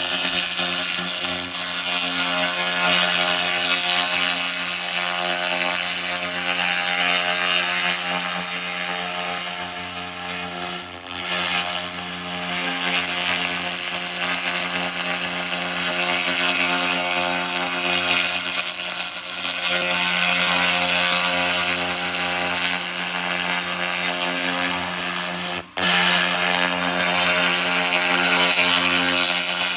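2000 W handheld laser rust remover running: a steady buzzing hum under a loud hiss and crackle as the beam burns rust off the metal. The hiss swells and fades as the beam moves, and it cuts out for a moment near the end before resuming.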